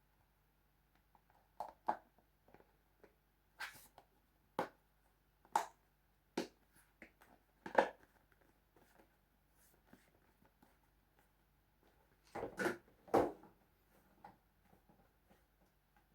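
Irregular knocks and taps of a kitchen knife and cut watermelon being handled on a cutting board, about a dozen separate knocks with a quick loud group about three-quarters of the way through.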